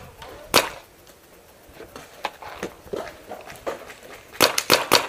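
Paintball markers firing: a sharp pop about half a second in, scattered shots after, then a quick string of shots near the end.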